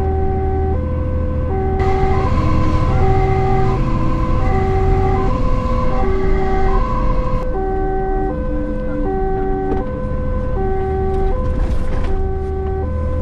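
Fire engine's two-tone siren alternating steadily between a low and a high note, each held about three-quarters of a second, heard from inside the truck. Under it are the truck's engine and road noise, which grow louder for a few seconds in the middle.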